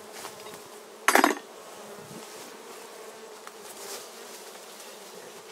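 Honeybees buzzing steadily around a Warré hive, with one sharp knock about a second in.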